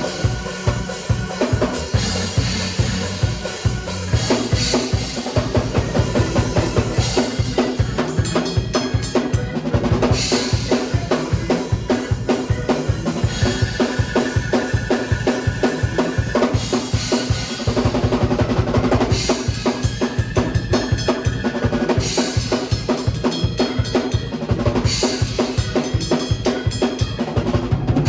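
Drum kit played in a fast, busy groove with rapid bass drum strokes and snare hits, and cymbal crashes bursting in a few times. Held notes from another instrument sound underneath.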